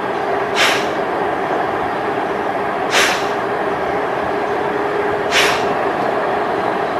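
Forceful nasal exhalations of Kapalbhati breathing: three short, sharp hissing puffs about two and a half seconds apart, each pushed out by pulling the navel in. They sound over a steady background hiss with a faint hum.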